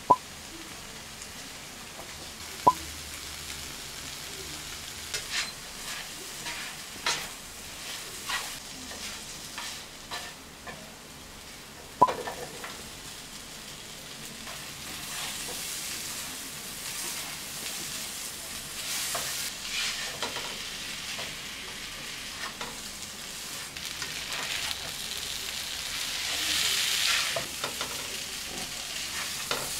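Onions and peppers stir-frying in a frying pan, sizzling steadily, with a few sharp taps of a utensil on the pan near the start and about twelve seconds in. Fried potato cubes are then tipped in and stirred with a spatula, and the sizzle and scraping grow louder toward the end.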